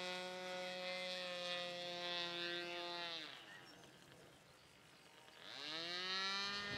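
Model aircraft's SC 25 two-stroke glow engine buzzing at steady high revs. About three seconds in its pitch falls and it fades almost to nothing, as when the throttle is pulled back. Near the end it climbs back up in pitch and loudness.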